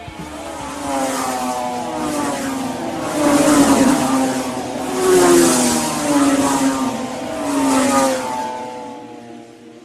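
Motor vehicle engine running, its pitch rising and falling several times with three or four louder swells, then fading away near the end.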